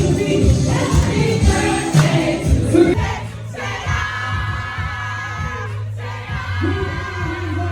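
Music with singing voices over a steady bass and beat, with long held notes in the middle.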